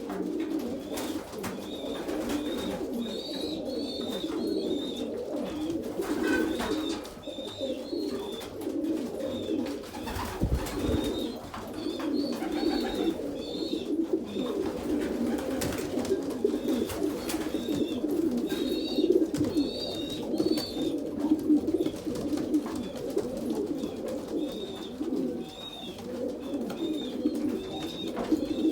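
Domestic pigeons cooing continuously in overlapping calls, with short high chirps that recur in small groups and scattered light clicks.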